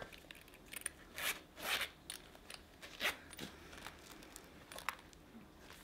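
Metal zipper of a zip-around leather wallet being pulled open in several short, faint strokes, with light rustling as the wallet is handled and opened out.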